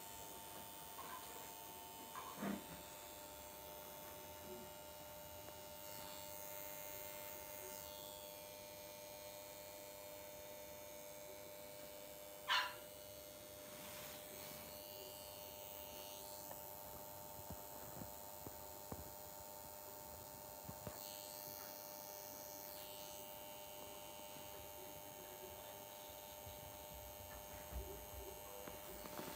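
Steady, quiet electrical hum. A single short, high squeak about twelve seconds in and a softer short sound a couple of seconds in break it.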